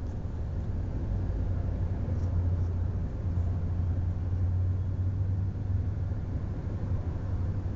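Steady low rumble of a car's engine and tyres on the road, heard from inside the moving car, swelling slightly a couple of seconds in.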